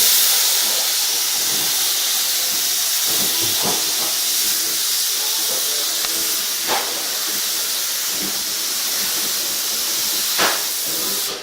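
Paint spray gun hissing steadily with its trigger held in, laying on a coat of paint; the hiss cuts off near the end.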